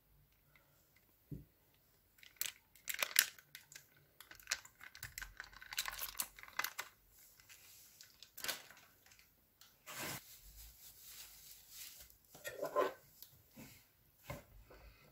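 Sticky slime being squeezed from a plastic piping bag and stirred: irregular wet crackles, pops and clicks that come in clusters with short quiet gaps.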